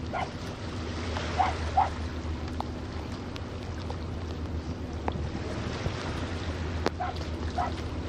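Wind buffeting the microphone over a steady low rumble, with a few short high calls in quick pairs, about a second and a half in and again near the end.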